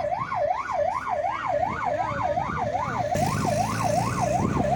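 Fast yelp siren of an escort vehicle with the race caravan, rising and falling about three times a second without a break. About three seconds in, the engine noise of approaching motorcycles and vehicles grows in under it.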